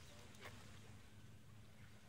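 Near silence: faint outdoor ambience with a low steady hum and one faint click about half a second in.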